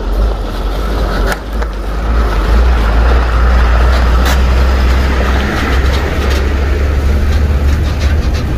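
Heavy diesel tanker truck running past close by on a rough dirt road, a steady low engine rumble with tyre noise, building about two seconds in. A few sharp clicks are heard over it.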